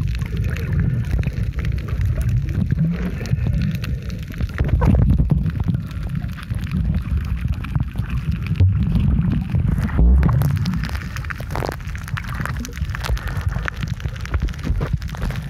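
Muffled underwater sound from a camera held below the surface while snorkeling: a steady low rumble of moving water with gurgling and scattered faint crackles.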